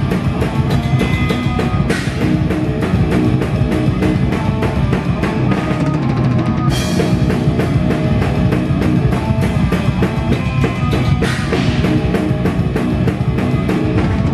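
Heavy metal band playing live, picked up by a camera microphone right behind the drum kit so the drums dominate: rapid kick drum and snare hits, with crash cymbals struck about two, seven and eleven seconds in, over the rest of the band.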